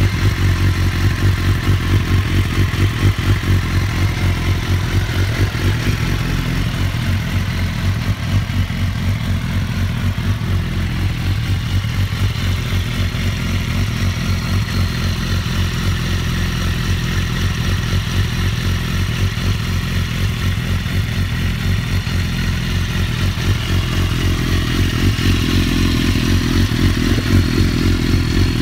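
BMW S1000RR inline-four motorcycle engine idling steadily through an Akrapovic full titanium exhaust, with a fast, even low pulsing.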